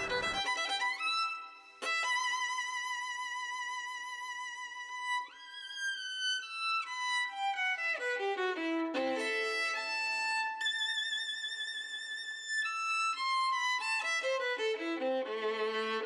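Background music: a solo violin playing a melody of held notes with vibrato and quick runs up and down.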